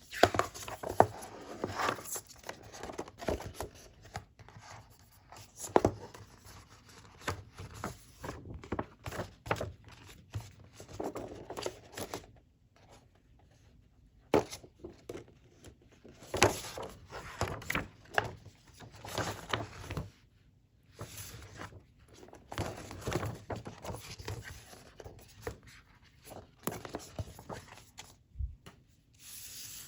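Hands unpacking paper and plastic packaging: irregular rustling, crinkling and tearing with many small taps and clicks, broken by a couple of short pauses.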